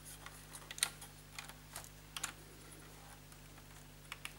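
A handful of faint, scattered plastic clicks and taps from the piano-key transport buttons of a Bang & Olufsen BeoCord 1100 cassette deck being pressed and handled. The button assembly is still hitting against the deck's front as the keys go down.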